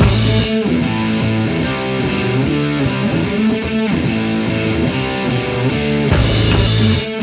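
Background rock music led by guitar, with a bright crash-like swell of noise about six seconds in.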